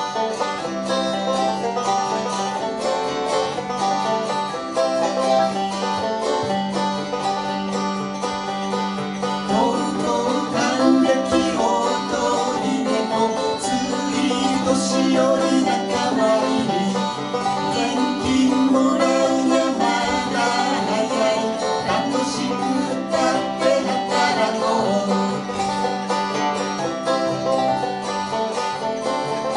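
Lively plucked-string instrumental music, many quick notes played over a steady held low tone.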